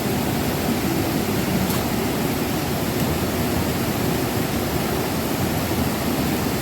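Steady rush of a jungle river's flowing water.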